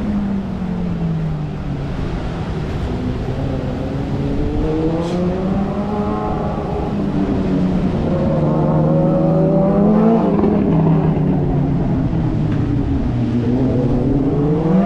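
Motor vehicle engine revving up and down in traffic, its pitch falling and rising again several times.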